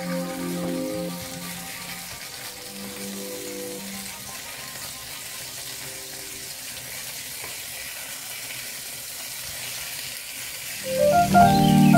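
Chicken drumsticks sizzling in hot oil in a non-stick frying pan, a steady hiss. Soft background music fades out over the first few seconds, and louder music comes in near the end.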